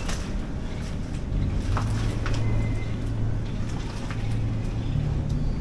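A steady low hum, with a few faint ticks and a brief thin squeak from the rusty corrugated-iron roof sheets working at their nails.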